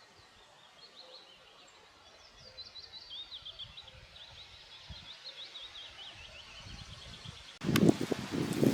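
A small songbird singing a quick series of short, high chirps over quiet forest ambience. Near the end a sudden loud rustling and crackling starts, like footsteps or movement through dry leaves and twigs.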